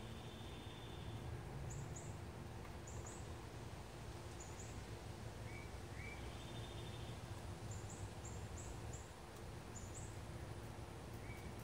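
Small songbirds singing faintly. One repeats a phrase of two short rising notes and a buzzy trill about every five and a half seconds, and high thin chirps come in pairs between them, over a steady low hum.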